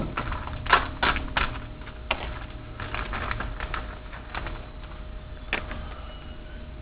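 Packaging being opened and handled: a run of sharp crinkles and clicks, most of them in the first couple of seconds, with a few more scattered later.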